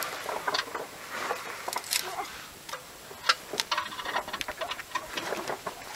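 Irregular light metallic clicks and clinks of a wrench and hand tools working under a car during an oil change, a few per second, with low talk.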